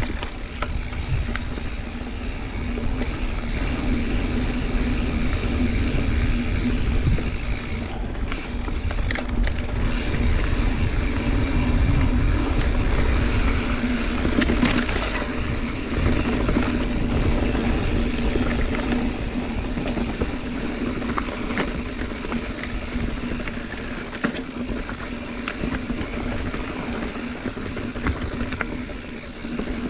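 Mountain bike being ridden on a dirt trail: wind rushing over the microphone, with the tires rolling along with a steady hum and scattered small rattles and clicks.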